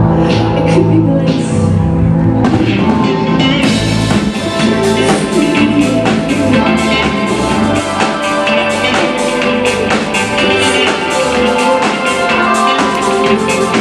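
Live band playing indie pop from the audience: drums, bass guitar, synth keyboard and a woman singing into a microphone. About four seconds in, the full drum beat with cymbals comes in and the sound fills out.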